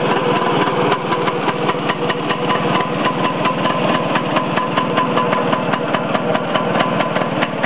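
1954 Rohr Rolletta scooter's small engine idling steadily with a rapid, even beat.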